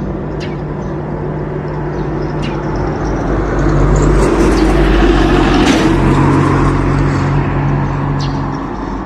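Road traffic: engines running steadily, with one vehicle passing that swells to its loudest in the middle and then fades.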